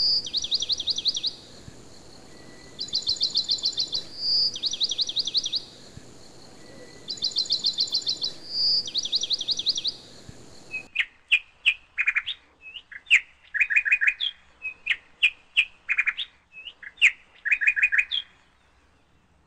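Songbirds singing: a fast high trill of about ten notes, repeated several times with a short whistled note between trills. After about eleven seconds it gives way abruptly to a run of short, sharp, separate chirps.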